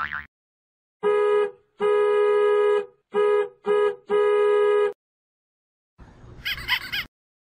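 Comedy sound-effect honks: a buzzy horn-like tone at one unchanging pitch, sounded five times in a short-long-short-short-long pattern. Near the end comes a brief noisy effect with a warbling high edge.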